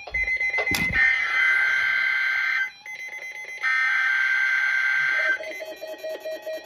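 NOAA Weather Radio SAME digital header bursts played through a weather radio's speaker: the buzzy two-tone data signal that opens the Required Weekly Test. It comes twice, about a second apart, with a sharp click about a second in and a fainter pulsing sound near the end.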